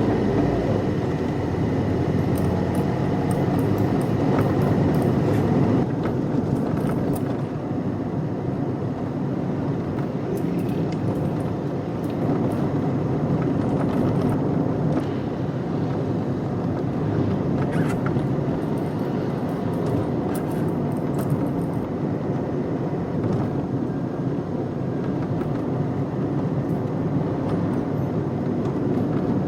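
Steady road and engine rumble of a moving car heard from inside the cabin, with small rattles and ticks now and then.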